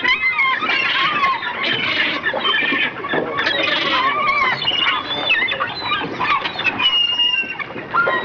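A flock of birds calling, many short calls overlapping one another without a pause.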